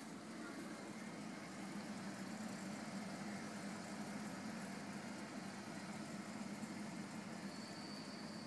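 Steady low hum of running aquarium equipment, such as pumps, heard close to the tank. A faint thin high whine joins it near the end.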